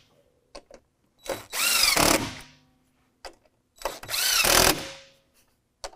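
Cordless drill/driver with a 10 mm socket running bolts down, in two short runs of about a second each, its motor pitch rising as it spins up and falling as it stops. Light clicks come between the runs.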